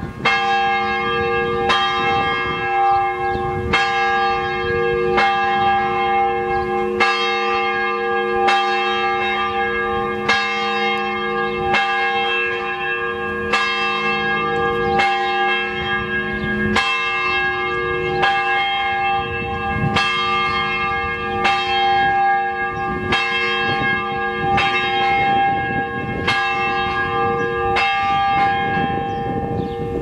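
Historic church tower bell being rung, striking steadily about every second and a half, each stroke's hum still sounding when the next one lands.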